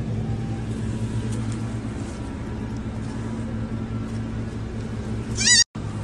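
A baby goat bleats once, briefly, high-pitched and wavering, near the end. A steady low hum runs underneath.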